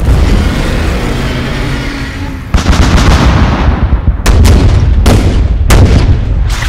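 Heavy rumbling explosions, then from about two and a half seconds in a louder barrage of tank cannon fire, with about five sharp shots in the second half.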